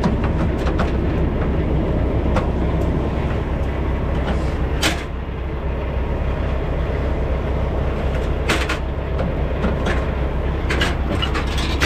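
Semi truck's diesel engine idling steadily, with a few sharp clicks and clanks about five seconds in and again near the end.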